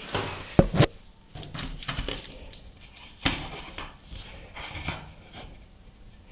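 Flat-blade screwdriver scraping limescale deposits out of a water pump's housing by hand, in short irregular strokes with sharp metal clicks and knocks, two of them under a second in.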